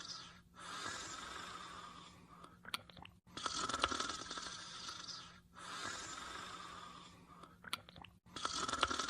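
Snoring: slow, raspy breaths in a steady rhythm, with a brief crackle and a short pause about every five seconds, over a faint steady hum.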